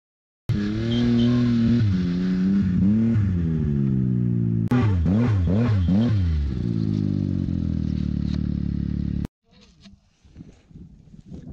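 Arctic Cat King Cat snowmobile's turbocharged two-stroke engine revving up and down in quick surges as it pushes through deep powder, then running steadily. It cuts off abruptly near the end, leaving faint scuffing and crunching in snow.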